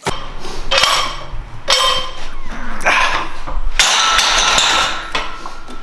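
A set of seated barbell presses in a power rack: sharp, forceful breaths about once a second with each rep, and metal clanks and rattles from the loaded bar and rack. The longest breath comes about two-thirds of the way in.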